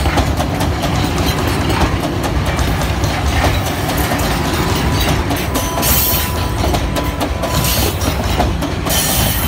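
Gypsum ore hopper cars of a narrow-gauge train rolling past: steel wheels clattering over the rails with a steady low rumble.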